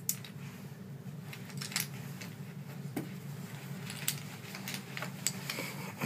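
Scattered light clicks and clacks of chunky alphabet puzzle pieces being picked up and knocked together, over a steady low hum.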